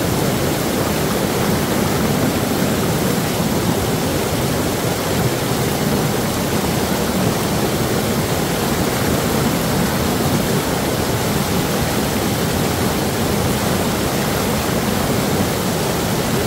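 Water rushing and splashing steadily over boulders in a small river cascade, close to the microphone.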